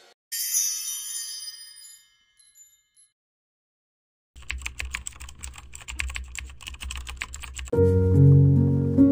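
A high, shimmering chime sound effect that dies away, then after a short silence a rapid run of computer keyboard typing clicks lasting about three seconds. Music with steady tones comes in near the end.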